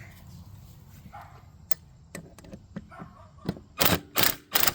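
A few light clicks, then a quick series of loud, sharp bangs in the last second or so, about two or three a second, from work on the quad's front wheels.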